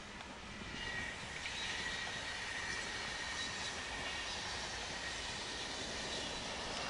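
SBB IC2000 double-deck push-pull train passing at speed with its driving trailer first. The steady rush of wheels on rails and moving air grows louder over the first second, with a thin high whine above it.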